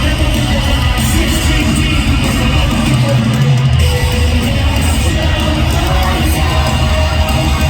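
Live rock band playing loud, heavy, guitar-driven music at an arena concert, with the crowd audible under it.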